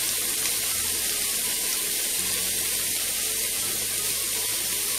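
Sliced onions, green chillies and curry leaves sizzling in hot oil in a kadai: a steady, even hiss.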